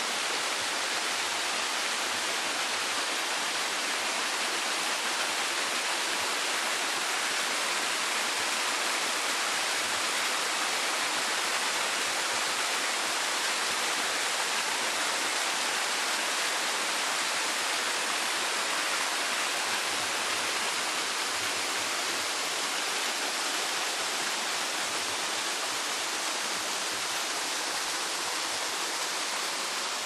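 Mountain stream rushing and splashing as it tumbles over rocks in small cascades: a steady, even rush of water.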